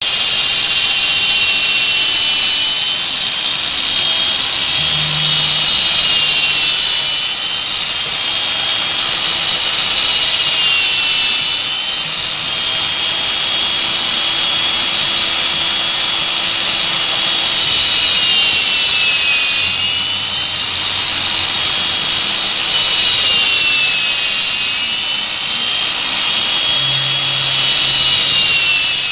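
Homemade wood mortising machine built around an old electric drill, running steadily as its bit cuts a mortise into a clamped block of wood. The drill motor's high whine sags in pitch several times under load and recovers.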